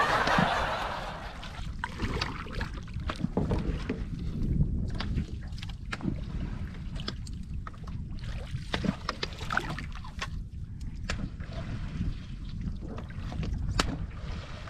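Lake water lapping and sloshing against boats, with wind rumbling on the microphone. A brief noisy burst comes right at the start, and small clicks and splashes are scattered throughout.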